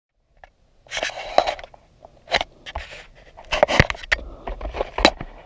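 Handling noise on the camera's microphone: scraping and rubbing, followed by several sharp knocks and clicks at irregular intervals.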